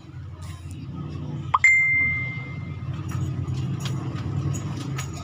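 A single bell-like ding about a second and a half in: one clear ringing tone that fades away over about a second, over a steady low hum.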